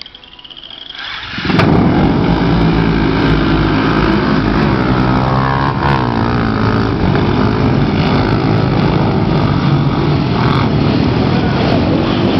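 A pack of utility ATVs launching together in a mass race start. Their engines swell and then break in suddenly about a second and a half in, and run at full throttle as the pack pulls away: a loud, dense din of many overlapping engines, with pitches sweeping as machines pass by.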